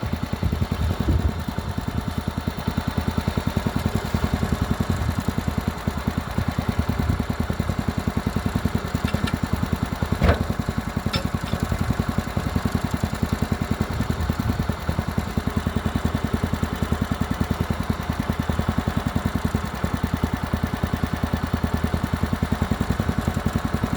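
An engine idling steadily with an even, rapid beat. There is one sharp knock about ten seconds in.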